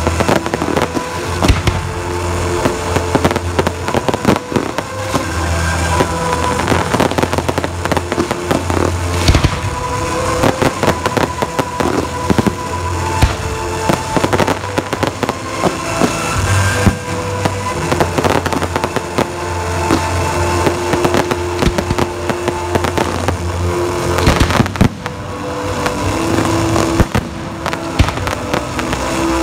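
A fireworks display going off nonstop, with many sharp bangs and dense crackling from crackle-effect shells. Music with held notes and a steady low bass plays underneath.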